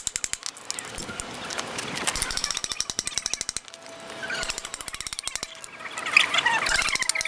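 Runs of rapid, evenly spaced mechanical clicking, like a ratchet, at the start and again from about two seconds in, then high squealing chirps near the end.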